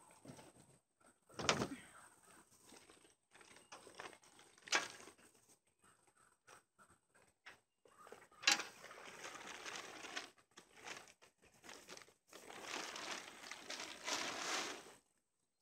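Plastic tarp rustling and crinkling as it is pulled and tugged into place, in two longer stretches in the second half, with a few sharp knocks and a dull thump earlier on.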